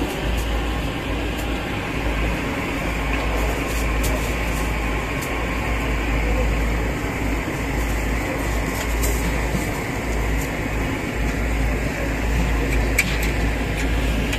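Steady background hum and hiss with a deep low rumble, like a fan or air conditioner mixed with the din of the surroundings, and a few faint clicks.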